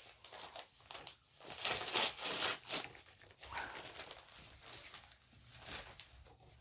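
A postal package being opened by hand: irregular crinkling and tearing of the packaging, busiest about two seconds in, then lighter rustling.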